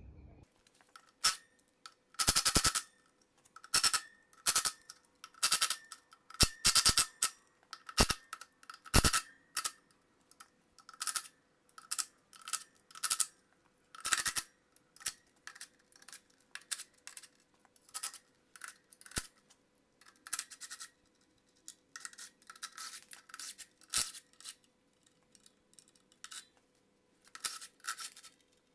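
Cordless impact wrench rattling in short bursts, again and again, as it undoes the bolts holding the clutch cover to the flywheel.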